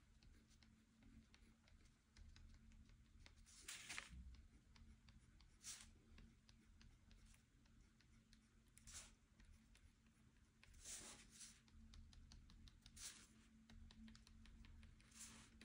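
Faint pen strokes on paper: short scratchy strokes every second or two, over a steady low hum.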